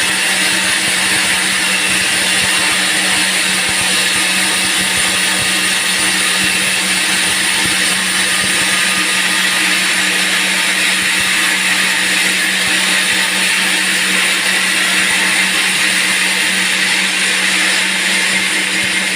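Band sawmill running steadily as it saws through a teak log: a continuous mechanical hum with a loud hiss over it, unchanged throughout.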